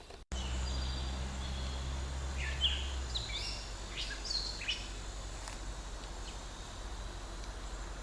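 Outdoor background noise with a handful of short, high bird chirps about two to five seconds in; a low hum under it stops about three seconds in.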